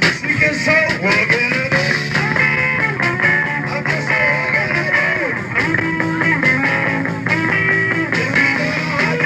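Live rock band recording: electric guitar playing bending lead notes over a steady bass line, with no singing.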